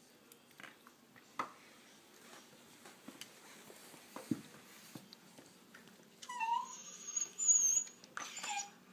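Shiba Inu puppy whining in a high pitch over a contested toy, in two stretches about two-thirds of the way in. Before that, only soft scattered taps and clicks as the dogs nose and mouth the toy.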